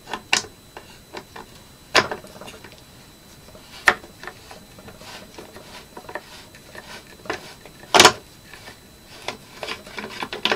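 Sharp clicks and knocks of hard plastic being handled, from the Vexilar FLX28 flasher pack's case and its transducer holder being worked loose: a handful of light ticks, with louder knocks about two, four and eight seconds in, the one near eight seconds the loudest.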